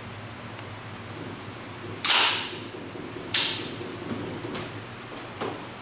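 WE M4 open-bolt gas blowback airsoft rifle: two loud, sharp cracks about a second and a half apart, each with a brief fading hiss, followed by two lighter clicks.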